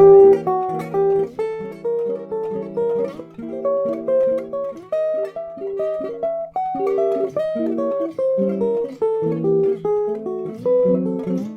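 Jazz guitar chords struck in a steady, even rhythm. The upper notes move a step up the scale and back to the chord tone as suspensions over a held low note.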